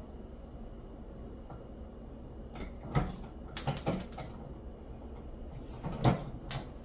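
A few light clicks and knocks from hands and tools working on electrical cable during wiring work, in a cluster about three to four seconds in and again about six seconds in.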